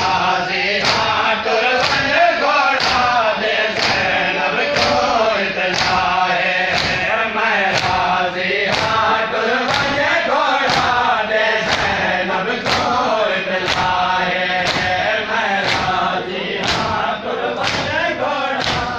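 Crowd of male mourners chanting a noha in unison, with sharp chest-beating (matam) strikes in time about once a second.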